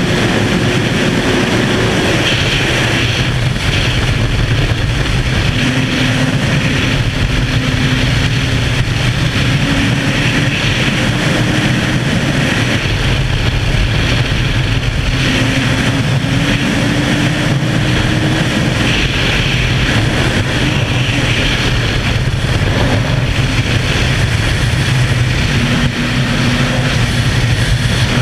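Suzuki sports bike's engine running hard at high road speed, buried in loud wind rush. The engine note climbs gently and settles back several times over the ride.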